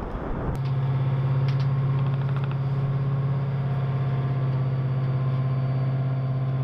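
Low rumble of a demolition blast dying away, cut off after about half a second by the steady hum of a Bradley fighting vehicle's diesel engine idling close by. A few sharp clicks and a short run of ticks sound over the idle.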